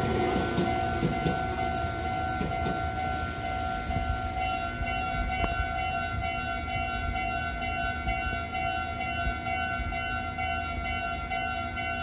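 Japanese level-crossing electronic warning bell ringing in a steady repeating pattern, while a Meitetsu electric train rumbles off across the crossing in the first couple of seconds. About four seconds in, a second, higher warning tone joins in.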